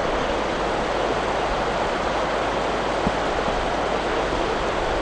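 Shallow river flowing over and between a line of stepping stones: a steady, even rush of water.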